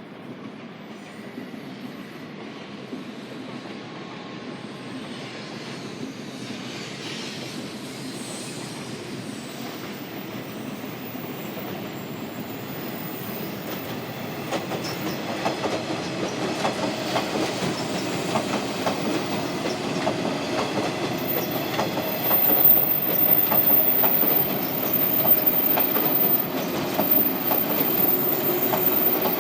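A train drawing near, growing steadily louder, with wheels clicking over rail joints and a steady running tone from about halfway through.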